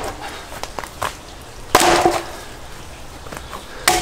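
Blows of a Fiskars splitting tool driven into firewood logs, about two seconds apart: a sharp crack a little under two seconds in and another right at the end, each with a short ringing note from the wood.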